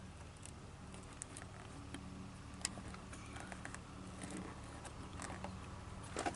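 Faint handling sounds of rubber weather stripping being worked onto its metal trim and clips: a few scattered light clicks and rustles over a low steady hum.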